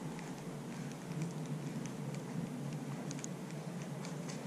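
Baitcasting reel being wound in during a lure retrieve: faint irregular ticking over a low steady hum.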